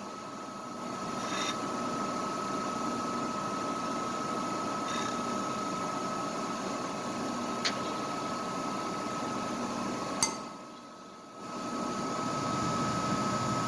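Milling machine running with an end mill lightly cutting down the peened head of a Swiss Army knife's brass pin: a steady machine whir with a constant high whine and a few faint clicks. It drops away for about a second near the end, then picks up again.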